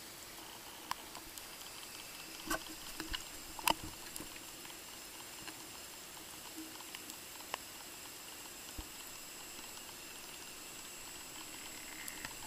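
Underwater ambience heard through an action camera's waterproof housing: a steady hiss with faint high whining tones, broken by scattered sharp clicks and taps. The loudest click comes a little under four seconds in.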